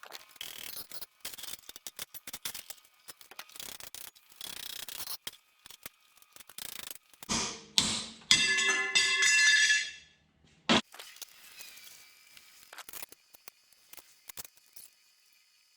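Steel pieces being handled during fabrication: a run of clanks and knocks, then a louder ringing scrape of metal on metal lasting about two seconds, ended by one sharp clank, after which it goes quiet.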